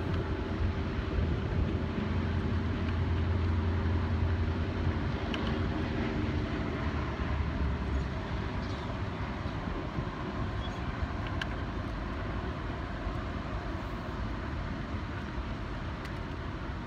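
A low engine drone from a passing motor, fading out about seven or eight seconds in, over a steady background rush.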